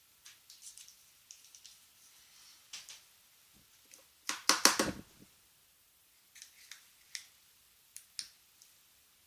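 Small plastic clicks and rattles from a car-alarm key fob's housing being handled, with a louder run of quick clicks about four and a half seconds in and a few single clicks near the end.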